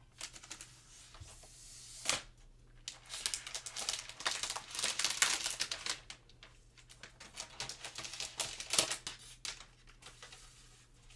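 An iPad's packaging being opened by hand: crinkling and tearing of wrapping, with rapid irregular clicks and taps. The handling is heaviest in the middle and again briefly near the end.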